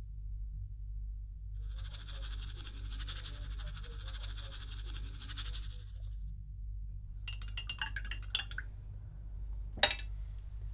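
Hot water poured into a mug of instant coffee for about four seconds, then a spoon clinking against the mug as it stirs, and one sharp knock near the end, over a faint low hum.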